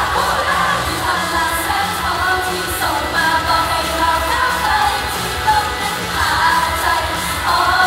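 Upbeat idol pop song played loud over a PA: female voices singing the melody into microphones over a backing track.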